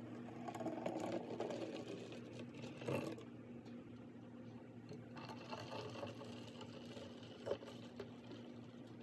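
Thick fresh juice pouring from a jar into a glass bottle, with a faint steady hum behind and a few light knocks of glass.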